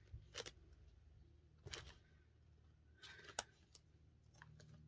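Faint handling sounds: a few short rustles and taps of clear plastic zipper pockets as the pages of a ring-bound cash binder are turned, loudest a little past three seconds in.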